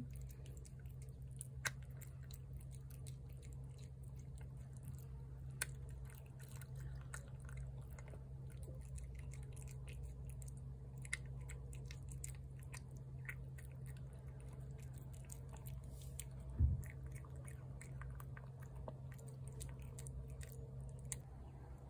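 A cat chewing wet cat food close up, many small wet clicks of its jaws and teeth, over a steady low hum. A single low thump comes about three-quarters of the way through.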